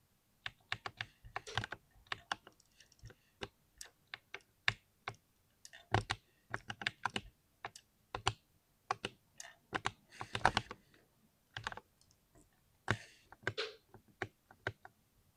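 Typing on a computer keyboard: irregular keystrokes in short runs with pauses, a few strokes louder and drawn out.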